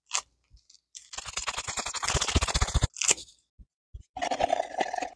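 A packet of instant coffee from a ration being torn open: a rapid tearing rustle lasting about two seconds, then a shorter rustle of the packet near the end.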